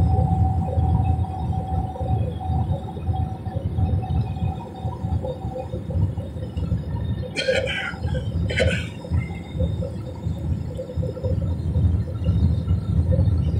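Steady low rumble of a jet airliner's cabin in flight: engine and airflow noise. A faint steady tone runs through it and stops about halfway. Just past the middle come two short higher-pitched sounds about a second apart.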